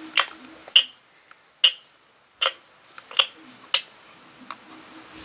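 About six sharp clicks and taps, spaced irregularly, from a spoon working at a Baby Alive doll's mouth and dish during feeding.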